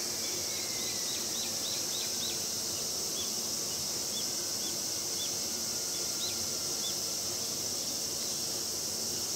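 Steady high-pitched drone of summer insects, with a bird calling a quick run of short falling chirps in the first couple of seconds and a few single chirps later.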